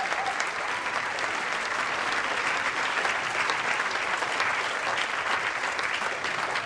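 Crowd applauding with dense, steady clapping.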